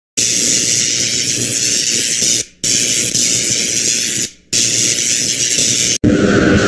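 Loud harsh static-like hissing noise, used as a sound effect, in three bursts of about two seconds each with brief breaks between them. About six seconds in it cuts abruptly to a different loud noise with a steady hum running through it.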